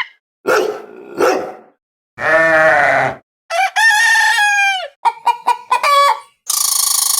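A run of short farm-animal sound effects played one after another, among them a rooster crowing and a hen clucking in quick short calls. Near the end a steady buzzing electronic tone begins.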